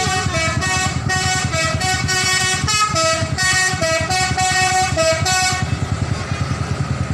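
Bus telolet horn playing a tune of short stepped notes, which stops about five and a half seconds in, over the bus engine running.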